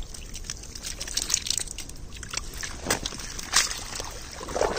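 Shallow, muddy creek water sloshing and splashing in irregular bursts as people work in it, with a few sharper splashes.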